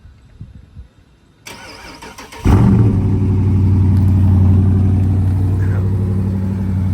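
Cold start of a 2019 Dodge Charger R/T's 5.7-litre HEMI V8 with its factory intake still fitted: a brief crank, then the engine catches about two and a half seconds in with a flare of revs and settles into a steady, loud fast idle.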